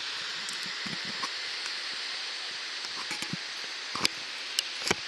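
River rapids rushing steadily below, a constant even hiss of whitewater. A couple of sharp clicks come near the end.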